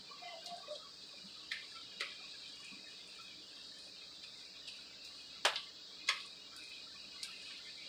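Slime being mixed by hand: a few sharp wet clicks and pops, two loudest about five and a half and six seconds in, over a steady faint high hiss.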